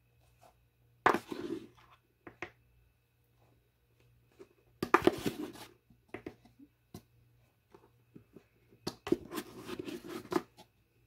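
A plastic half-cup measure scooping flour from a plastic canister and tipping it into a stainless steel mixing bowl: three scraping, rustling bursts a few seconds apart, with small clicks and taps between them.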